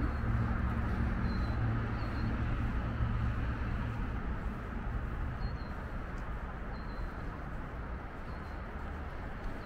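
Steady drone of road traffic on the highway above the underpass, easing slightly toward the end, with several short, faint bird chirps over it.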